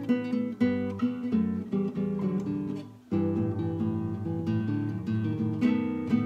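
Nylon-string classical guitar played solo: plucked notes and ringing chords, with a brief pause about halfway through before the playing resumes.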